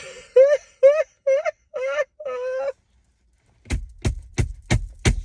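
A woman whoops in excitement, a run of six short, high, rising "woo" cries. After a brief pause come five quick, sharp claps.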